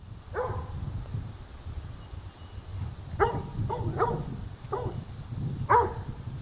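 Red kelpie barking, about six short barks spaced irregularly, the loudest near the end, over a steady low rumble.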